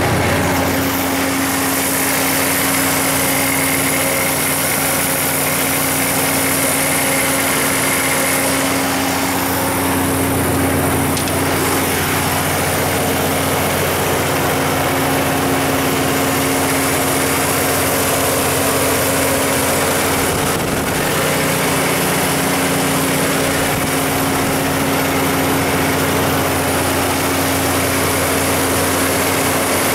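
Kohler 180 kW diesel generator set's John Deere 6081 inline-six diesel engine running steadily at a constant governed speed of about 1800 rpm.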